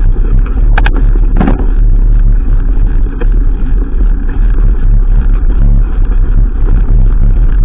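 Mountain bike rolling over a gravel dirt track: a steady low rumble of wind and tyre noise on the action camera's microphone, with a couple of sharp knocks from the bike rattling over stones about a second in.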